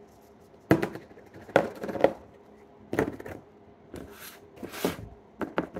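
Small plastic slime tubs being picked up, moved and set down on a tabletop: four sharp knocks and clacks in the first three seconds, then two short swishes and two light clicks near the end.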